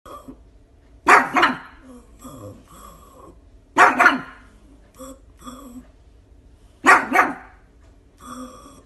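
A pug barking in short two-part woofs that sound like "poo poo", three times about three seconds apart, with softer sounds between.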